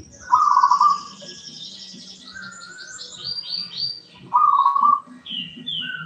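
Zebra dove (perkutut) cooing twice, each a short run of rapid staccato coos, one at the start and one about four seconds in. These are the loudest sounds. Between them come high, quick chirps and trills from a sparrow.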